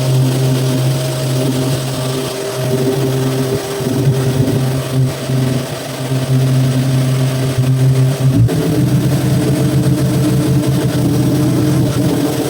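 Power sander running steadily on a car door panel, a droning hum with a hiss of abrasive on top; its tone shifts and gets rougher about eight and a half seconds in.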